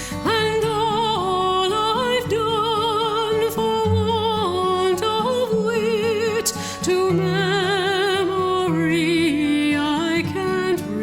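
Slow music: a melody with heavy vibrato moving between long held notes over sustained chords.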